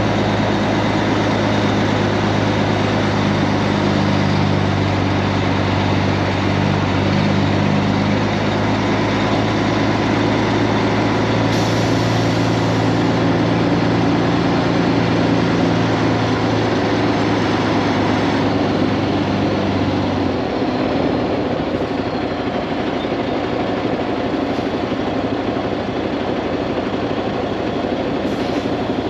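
Kenworth W900 semi truck driving down the road: a steady diesel engine drone over road noise, the engine's low hum dropping away about two-thirds of the way through while the road noise carries on.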